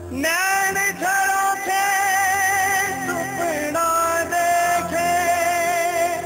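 Wedding song: a singer holding long, wavering notes in short phrases over a steady low accompaniment.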